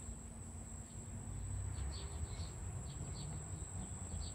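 Quiet background with a steady high-pitched whine and a few faint, short chirps scattered through the second half.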